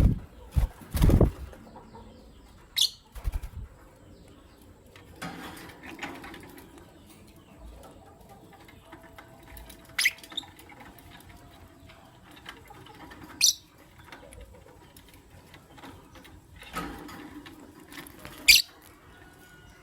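Masked lovebirds in a cage: four short, shrill chirps spread several seconds apart, with a loud flutter of wings about a second in and softer rustling and scuffling between.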